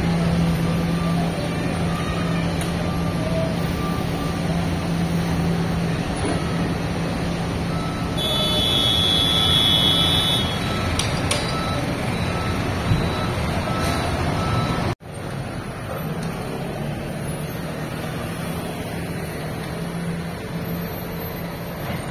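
City street traffic: a heavy vehicle's engine hums steadily, and an electronic beeping sounds for a couple of seconds about eight seconds in. About fifteen seconds in, the sound cuts out for a moment and comes back as lighter traffic noise.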